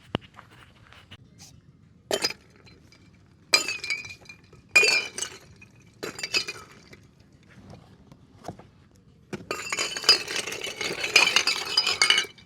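Hard objects clinking and rattling against one another with a ringing tone: four short clatters, then about three seconds of continuous clattering near the end.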